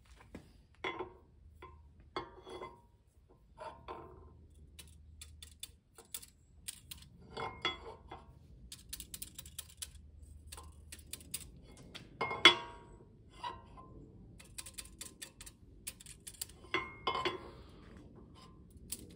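Steel straight edge and feeler gauge being set down, slid and tapped on the face of a Land Rover 2.25 petrol engine's cast-iron cylinder head: scattered light metal clinks and short scrapes, with one sharper knock about twelve seconds in. This is the head face being checked for warping.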